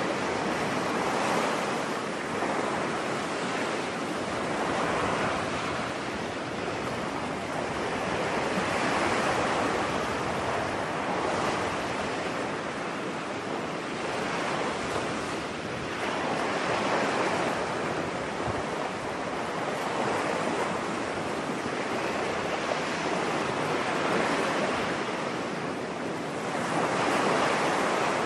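Ocean surf on a beach: waves breaking and washing in, the rush rising and falling every several seconds.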